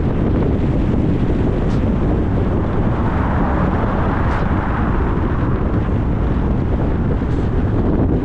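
Steady wind and road noise of a car driving, with wind buffeting the microphone. The hiss swells briefly about halfway through.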